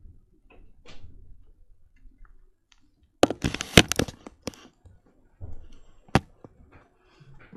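Homemade slime being squeezed and poked by hand, giving off sharp popping clicks and crackles. They come in a dense cluster about three seconds in, with one more sharp pop near the end.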